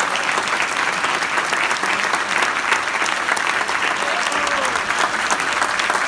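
Concert audience applauding, a dense steady clapping just after a string orchestra piece ends.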